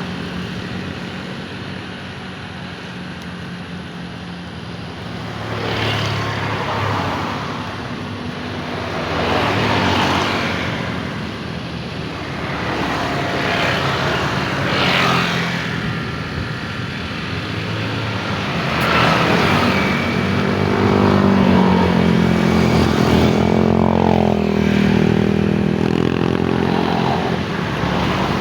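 Vehicles passing one after another, each swelling and fading every few seconds, then a louder engine drone with shifting pitch building through the second half.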